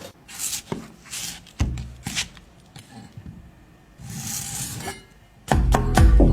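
A few short rubbing and scraping noises with faint knocks, then background music with a steady beat starts about five and a half seconds in.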